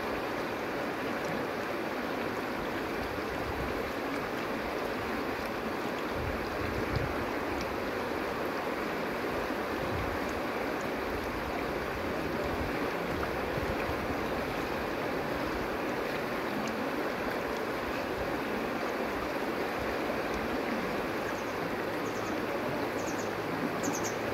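River water rushing steadily over stones close by, an even, unbroken flow.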